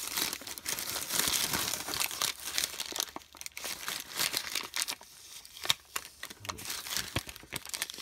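A paper cheese wrapper crinkling and crackling as it is unfolded by hand: dense for the first three seconds, then scattered crackles with one sharp snap a little before six seconds in.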